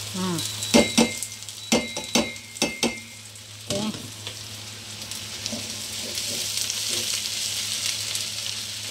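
Bitter melon, tofu and tempeh frying in a wok: several sharp knocks against the pan in the first four seconds, then steady sizzling as the vegetables are stirred.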